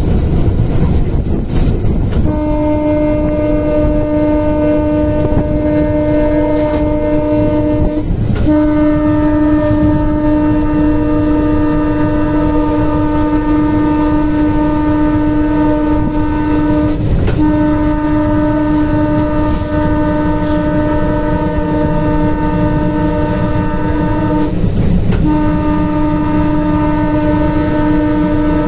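Indian Railways locomotive horn sounding a multi-note chord in long held blasts, broken by short gaps three times, over the steady rumble of the moving train.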